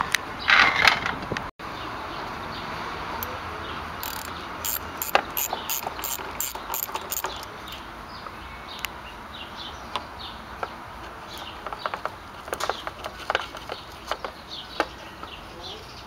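Ratchet wrench clicking as the battery's positive terminal clamp nut is loosened, with a run of quick, even clicks at about three a second and scattered clicks and taps later.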